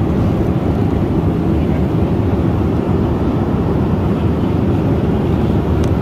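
Steady low rumble of a Boeing 737 MAX 9 jet airliner, even in level throughout.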